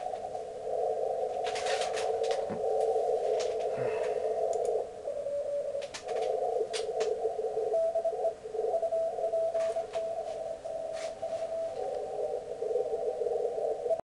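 Elecraft K3 receiver audio tuned to the 20-metre CW band: band noise heard through a narrow CW filter, with Morse code signals in it. A clearer Morse tone is keyed on and off from about eight seconds in to nearly twelve, and short clicks come now and then.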